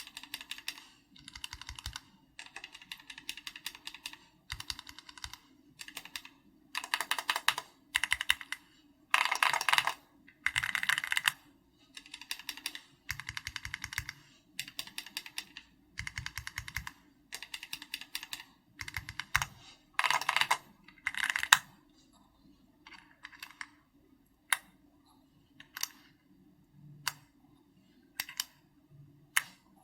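Typing on a custom mechanical keyboard with an SPM AL66B housing, Keychron Red linear switches and XVX comic-style keycaps: fast runs of keystrokes a second or two long with short pauses between them. After about twenty seconds the typing thins to scattered single key presses.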